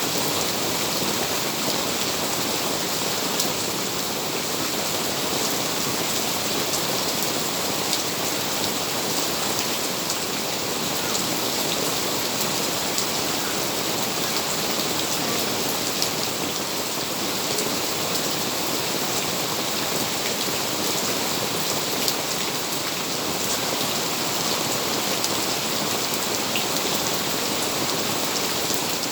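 Steady heavy rain falling, a dense even hiss with many individual drops ticking on surfaces.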